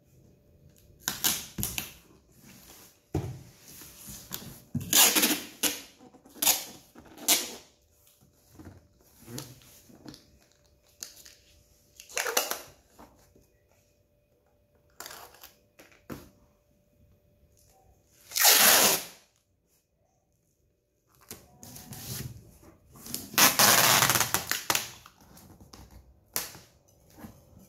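Brown packing tape pulled off its roll in a series of short ripping pulls to seal a cardboard box, with quiet gaps between them. The longest, loudest pulls come about two-thirds of the way through and again near the end.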